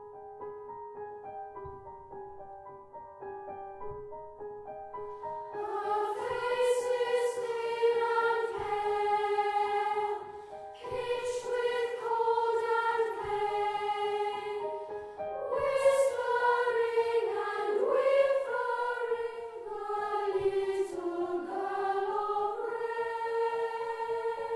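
A boys' choir singing with grand piano accompaniment. The piano plays repeated notes alone at first, and the voices come in about five seconds in, singing in phrases with short breaths between them.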